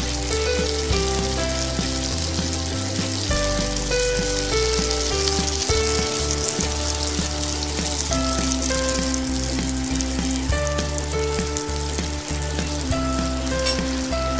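Chopped garlic and then chopped onion sizzling in oil in a nonstick pan as they are stirred with a silicone spatula. The steady sizzle is mixed with background music.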